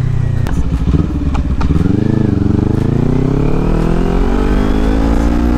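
Kawasaki Ninja 400's parallel-twin engine accelerating under the rider, running on a newly fitted clutch lining and springs. After a dip about two seconds in, the revs climb steadily.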